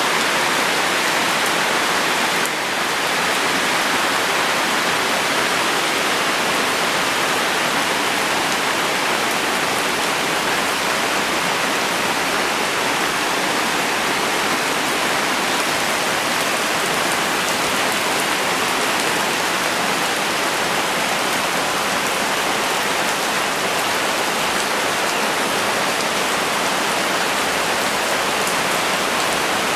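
Steady heavy rainfall: a dense, even hiss of rain coming down, unbroken throughout.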